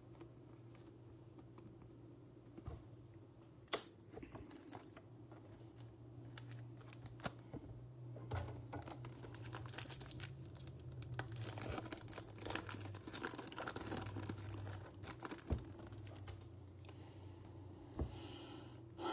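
Foil trading-card pack wrapper crinkling and tearing open, with cards handled in the hands: faint, irregular crackles that grow busier partway through, over a low steady hum.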